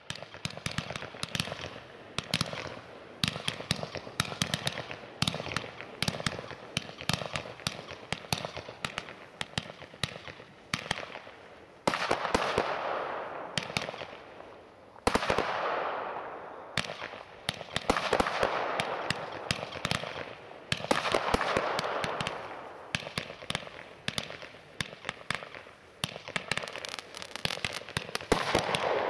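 Weco Power Tec PRO 300.1 automatic compound firework firing its cakes in a continuous run: rapid launch thumps and dense crackling pops throughout, with louder bursts about twelve and fifteen seconds in, each trailing off in a hiss.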